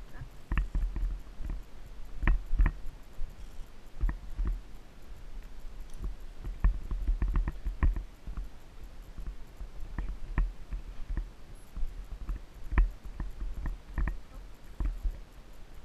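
Irregular clicks and knocks from a ridden Icelandic horse's hooves and tack on a dirt trail, over a steady low rumble, picked up by a camera worn by the rider.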